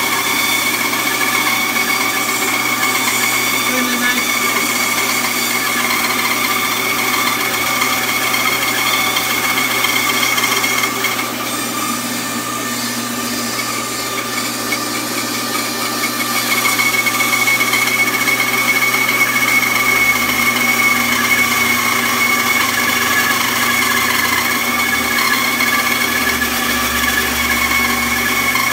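A 1 HP benchtop band saw running with a steady whine as its blade rips a round wooden branch lengthwise. The sound drops a little about halfway through, then comes back a bit louder.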